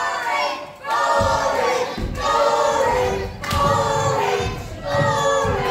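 Wrestling crowd chanting in unison: about five sung phrases of roughly a second each, one after another.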